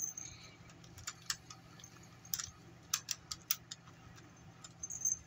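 Small metal jingle bells on a Furby's collar jingling faintly in scattered light clicks as the toy is handled.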